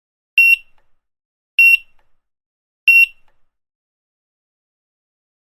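Grocery checkout barcode scanner beeping three times, short high single-pitch beeps about a second and a quarter apart, each one signalling an item scanned.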